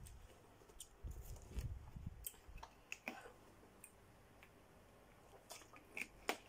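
Faint clicks and crinkles of a small plastic water bottle being handled and drunk from, with a few sharper clicks near the end as its cap is put back on.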